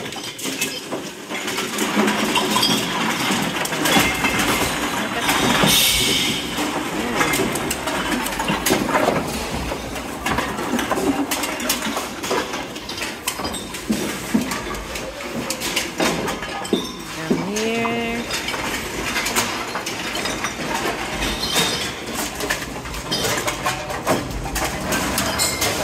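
Aluminium cans and plastic bottles clattering and clinking onto a bottle-depot sorting counter as bags of recyclables are emptied and the containers are sorted. A short rising tone is heard about two-thirds of the way through.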